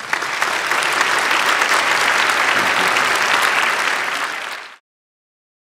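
Large audience applauding: dense, steady clapping from a full hall, which cuts off abruptly near the end.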